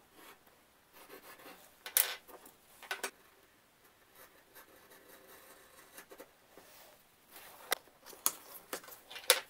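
Pencil scratching on thin cardboard along a steel rule, then a knife scoring and cutting through the cardboard, with a few sharp taps and clicks, the loudest about two and three seconds in and again near the end.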